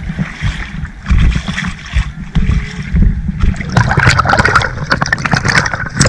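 Sea water sloshing and splashing right at the microphone of a camera held at the water's surface. It starts as low, uneven sloshing and turns into busier, crackling splashes from about halfway.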